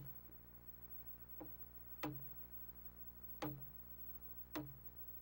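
A steel hammer striking the handle of a wooden-handled chisel five times, about one blow every second or so, each a sharp knock with a short ring; the second blow is lighter. The chisel is cutting the end of a timber tenon square.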